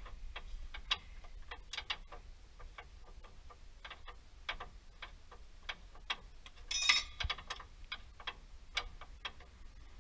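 Hand tools clicking against metal: a string of irregular sharp ticks, with a brief louder clatter about seven seconds in.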